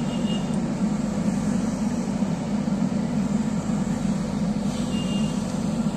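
JCB 3DX backhoe loader's diesel engine running steadily under load while its boom and bucket lift a pickup truck.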